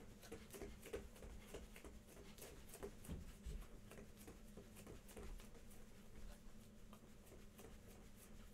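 Faint, rhythmic soft thuds of bare feet bouncing on a yoga mat, about three a second, over a low steady hum.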